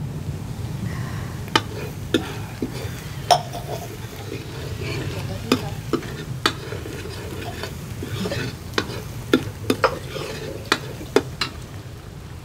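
A metal ladle stirring in a kadai over a wood fire, with irregular sharp clinks as it strikes the pan, over a steady frying sizzle.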